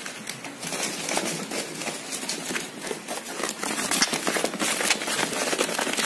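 Crinkling plastic sheeting and clicking plastic baskets being handled, an irregular rustle full of small sharp clicks that starts about half a second in.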